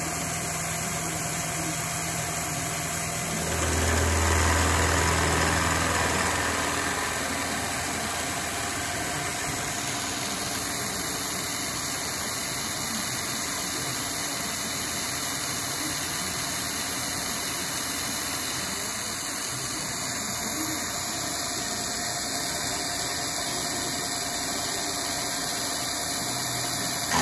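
Bridgeport-type milling machine spindle turning a carbide insert face mill at about 975 RPM, taking a slow 5-inch-per-minute cut across a 4140 heat-treated steel shaft. It is a steady machining hum with a low rumble that swells louder for a few seconds starting about four seconds in.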